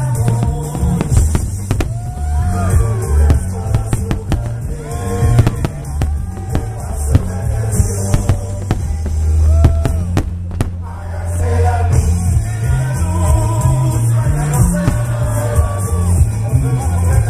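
Loud rock-style music with singing and a heavy bass, mixed with many sharp bangs and crackles of exploding fireworks.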